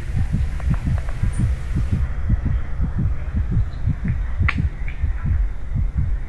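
A steady, fast low pulsing beat, about four thumps a second, with a sharp click about four and a half seconds in.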